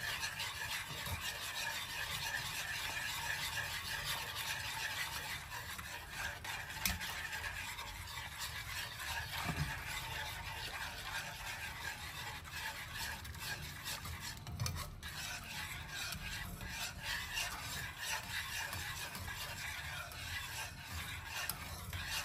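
Whisk stirring butter into a sauce in a pan on low heat: a continuous light scraping, with a faint sizzle underneath.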